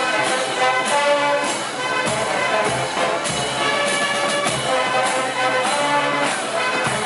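Brass band playing a tune, horns holding pitched notes over a recurring percussive beat.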